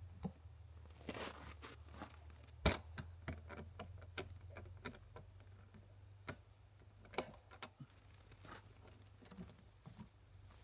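Scattered small clicks, taps and knocks of gear being handled, with one sharp knock about two and a half seconds in, over a low steady hum.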